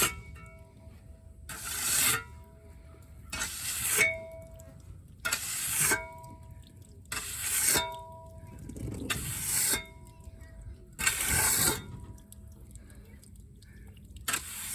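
A hand tool drawn over wet concrete in regular strokes, about one every two seconds, each a swelling scrape that stops sharply: the slab being worked smooth after the pour.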